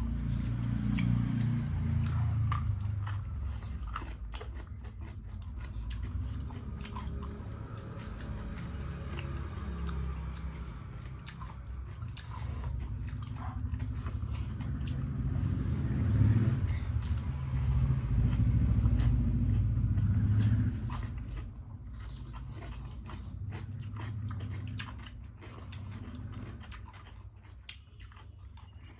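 Close-up chewing and crunching of food in the mouth, with many small sharp clicks, louder for a few seconds past the middle.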